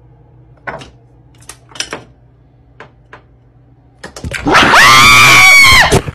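A few light clicks and knocks, then a person's very loud, high-pitched scream, held on one pitch for about a second and a half and dropping at the end.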